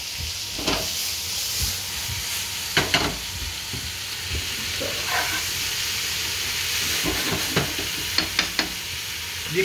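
Vegetables and prawns sizzling in a frying pan with a steady hiss, while a utensil stirs them, knocking against the pan several times.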